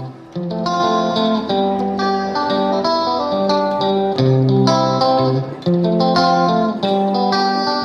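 Background music led by a plucked guitar, playing a melody of picked notes.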